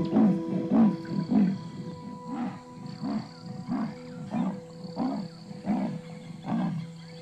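Female leopard calling for her cub: a long series of short, repeated calls, about two a second at first, then slowing and spacing out, over soft sustained background music.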